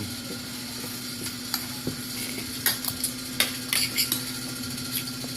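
Spoons and forks clinking and scraping against plates and bowls during a meal, a scatter of short clicks, several close together in the second half, over a steady low hum.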